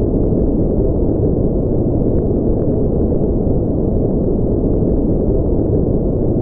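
Continuous, steady, deep-toned white noise, with its energy in the low end and the highs filtered away, so it sounds like a low rush.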